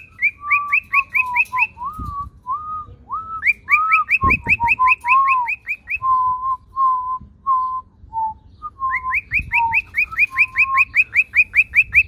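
Cockatiel whistling its "alarm": fast runs of short, rising chirps at about five a second, starting and stopping in bursts, mixed with slower, lower whistled notes.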